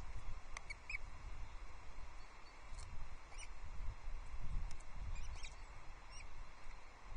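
Wind buffeting the outdoor nest-camera microphone as an uneven low rumble, with faint, brief high-pitched chirps scattered through it.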